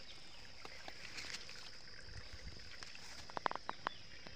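Bamboo-slat fish trap being lifted and handled: faint rustling, then a quick run of sharp clicks and knocks about three and a half seconds in.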